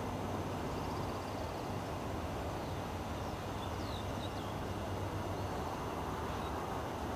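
Steady low outdoor background rumble with a low hum that fades out near the end, and a few faint high bird chirps in the middle.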